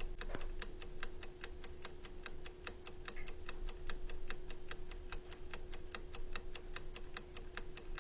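Rapid, evenly spaced mechanical ticking, about four ticks a second, over a faint steady hum.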